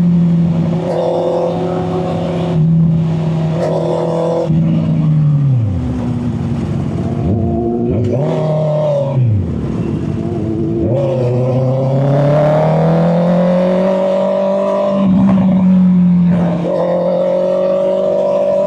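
Honda CB650R's inline-four engine running, heard through a microphone in the rider's back pocket. The revs hold fairly steady, then fall sharply three times around the middle before climbing steadily again as the throttle opens.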